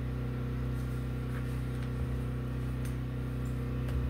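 Steady low hum, with a few faint short ticks.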